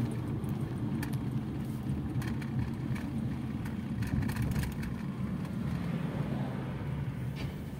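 Fiat Egea driving at moderate speed, heard from inside the cabin: a steady low rumble of engine and tyre noise.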